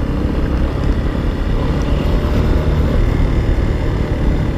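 Motorcycle engine running steadily at low road speed, around 25–30 km/h, with a low wind rumble on the microphone.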